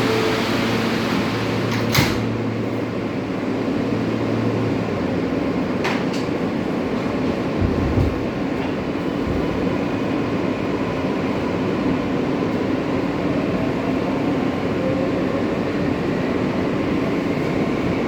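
R143 subway car running: a steady rumble and ventilation hum, with a sharp bang about two seconds in as the doors close, another knock a few seconds later and a low thump. A faint rising whine comes in near the end.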